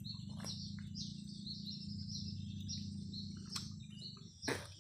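Birds chirping in short repeated high notes over a steady low hum, with a few soft clicks from a man chewing grilled catfish.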